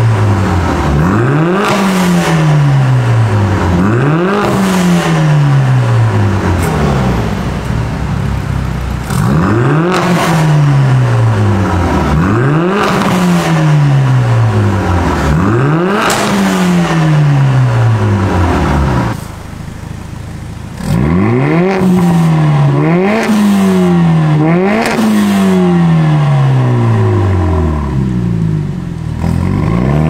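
Mercedes-AMG CLA45S's turbocharged 2.0-litre four-cylinder, fitted with catless downpipes and a valved catback exhaust, free-revving while stationary: repeated throttle blips, each rising fast and falling back more slowly, every two to three seconds. The revs are done first with the exhaust valves closed, then with them open, which a sound meter reads about 90 dB and 107 dB; a short drop back to idle comes about two-thirds of the way through.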